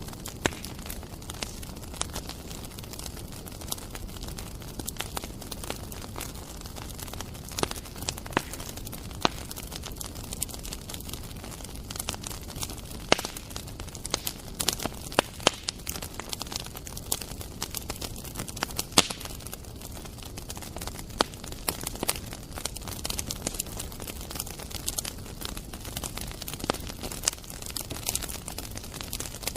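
Bonfire crackling, with irregular sharp pops and snaps over a steady hiss.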